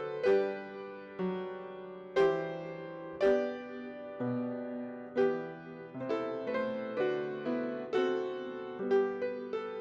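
Piano playing a slow, unhurried piece, its notes and chords struck and left to ring and fade.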